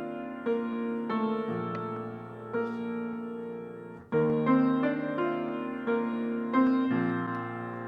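Piano playing slow, sustained chords as the instrumental introduction to a sung church anthem; a louder chord opens a new phrase about four seconds in.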